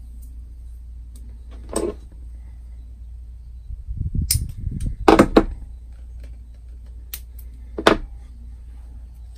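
Electrical tape being pulled off the roll and wrapped around wire connections: four short rasps, the loudest about five seconds in, with handling rustle just before it, over a steady low hum.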